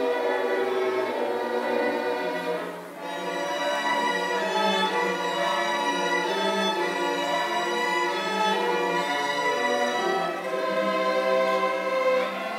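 String orchestra of violins and cellos playing sustained bowed notes, with a brief break between phrases about three seconds in.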